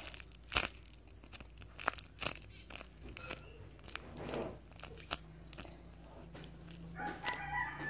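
Homemade paper squishy (taped paper fries) being squeezed and handled, giving scattered crinkles and sharp crunches of paper. A cat starts meowing near the end.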